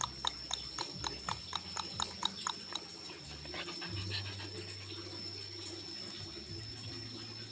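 Dog panting rapidly, about six short breaths a second, fading out about three seconds in.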